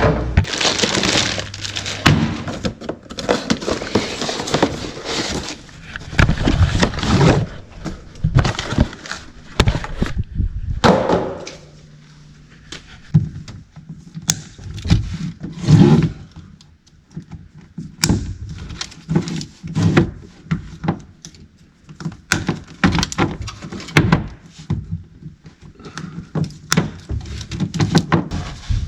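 Irregular knocks, clunks and scraping of hand tools and hose parts being handled while old fuel hoses are worked off the boat.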